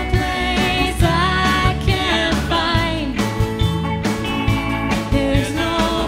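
A song with a singing voice over guitar and drums, steady beat.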